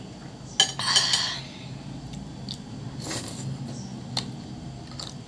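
Metal spoon and fork clinking and scraping against a ceramic bowl of stew during eating: a sharp clink a little over half a second in, a louder scrape right after it, then a few lighter clinks.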